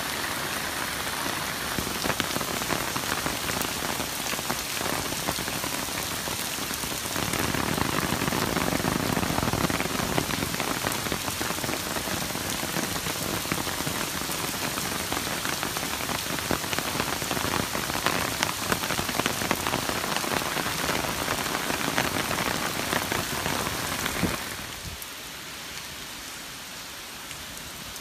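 Heavy typhoon rain pouring onto a paved street: a steady hiss thick with the patter of drops. It gets softer about four seconds before the end.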